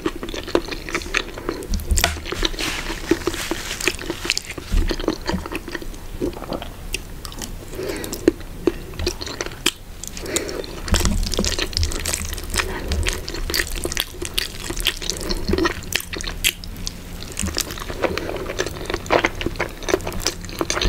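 Close-miked wet eating sounds from creamy spaghetti carbonara with sausage: chewing and mouth smacks, with many small sticky clicks throughout.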